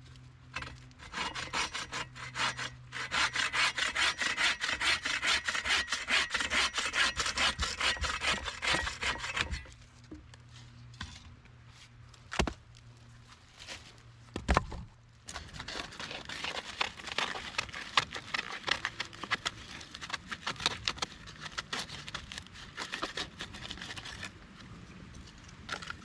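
A hand saw cutting through wood with quick, even back-and-forth strokes. The strokes stop after about nine seconds, two short knocks follow, and a quieter run of sawing starts again a few seconds later.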